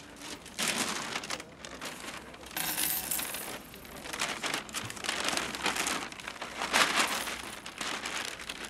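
Thin plastic carrier bag rustling and crinkling in irregular bursts as a football is put into it.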